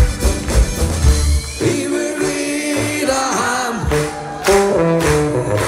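Live band music with guitars and a button accordion playing. The low bass drops out about one and a half seconds in, leaving a stepped melody line of held notes.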